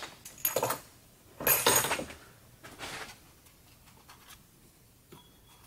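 Excess thread sealant being wiped by hand off a freshly installed threaded plug in an engine's cylinder head: three short rubbing sounds, the middle one longest and loudest.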